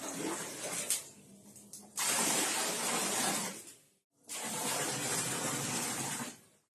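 Water pouring into a bucket: a steady splashing rush, softer for the first two seconds and then louder. It breaks off briefly about four seconds in and again near the end.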